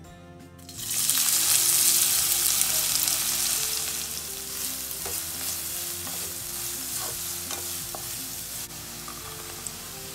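Chopped red onions sizzling in hot oil and ghee in a pan. The sizzle starts suddenly and loud about a second in as they hit the fat, then settles to a steadier frying hiss with a few light clicks as they are stirred.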